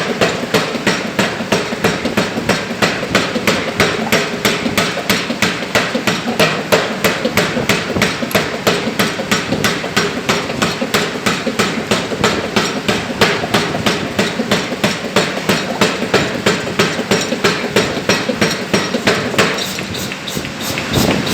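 1 cwt Alldays pneumatic power hammer striking a stainless steel workpiece in a fast, even rhythm of about three to four blows a second, forging a valve ball.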